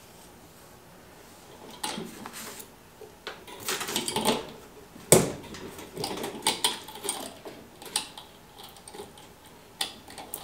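Light steel chain rattling and clinking as it is wrapped around itself and hooked back by hand, a string of irregular clicks with one sharp clink about five seconds in.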